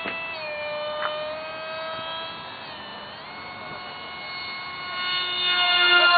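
Radio-controlled model jet in flight, its engine giving a steady high whine of several tones that shift slightly in pitch and grow louder near the end as it comes close.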